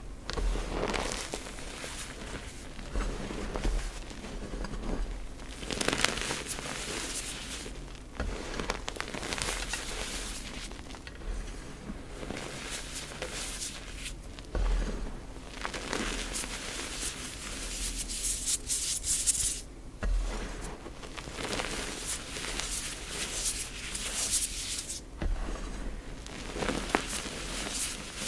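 Hands slowly squeezing and crushing cornstarch-topped gym chalk powder, which crunches and squeaks under the pressure. The squeezes come as a string of slow presses, each a second or two long.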